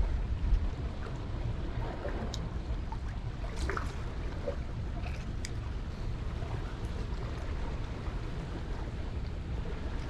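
Steady rushing water below a lake spillway, a constant low rumble and hiss, with a few faint short high sounds about two to five seconds in.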